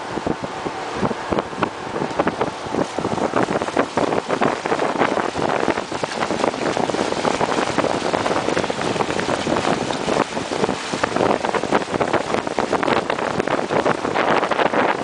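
Wind buffeting the microphone over the rushing and splashing of water along the hull of a small motorboat under way, a dense, steady noise full of quick irregular gusts.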